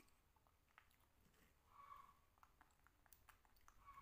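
Near silence, with faint soft clicks and mouth sounds of a toddler and a baby monkey quietly eating dragon fruit.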